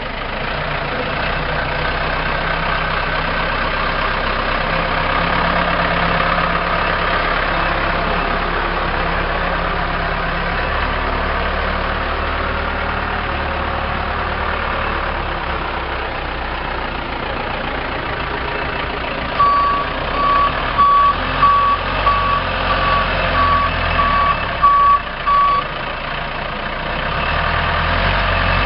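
Case 580M loader/backhoe's diesel engine running steadily. About two-thirds of the way through, a reversing alarm beeps about ten times, evenly spaced roughly every 0.6 seconds, as the machine backs up.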